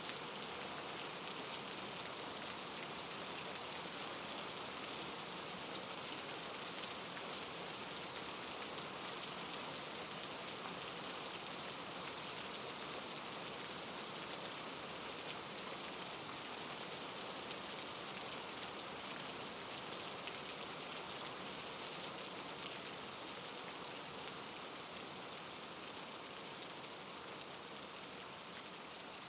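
Steady soft rain: an even hiss of rainfall with faint scattered drop ticks.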